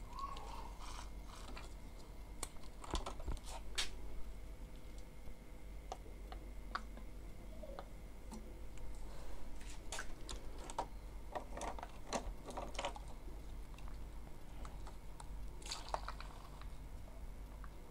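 Scattered small plastic clicks and taps from hands unclipping and handling an Epson L-series printer's ink damper with a tube fitted to it, over a low steady hum. The clicks come in clusters, densest in the middle, with a short rustle near the end.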